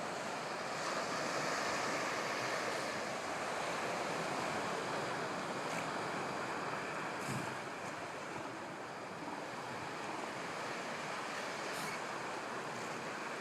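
Ocean surf washing onto a beach in a steady rush, swelling a little in the first few seconds, with wind buffeting the microphone.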